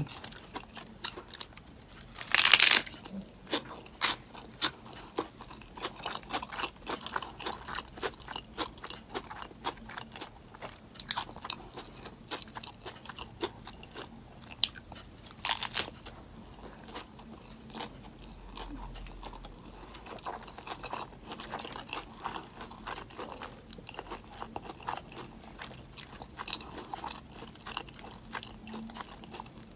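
Bites into a lettuce-wrapped plant-based burger patty, the crisp romaine leaves crunching, then chewing with many small clicks. The loudest crunch comes about two and a half seconds in, another about fifteen and a half seconds in.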